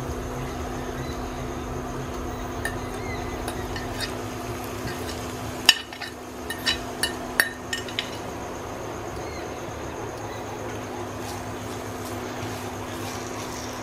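A metal fork scraping and clinking against a ceramic plate and a nonstick frying pan as mashed aubergine is pushed off into the pan, with a run of sharp clinks about six to eight seconds in. A steady hum with a fan-like hiss from the induction cooktop runs underneath.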